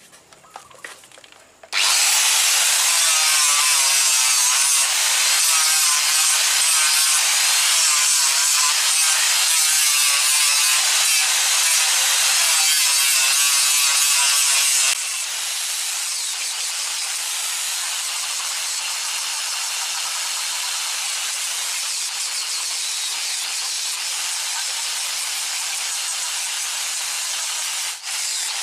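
Angle grinder shaping a sonokeling (Indonesian rosewood) knife handle, starting about two seconds in, its pitch wavering as it grinds the wood. About halfway through it drops to a steadier, quieter level.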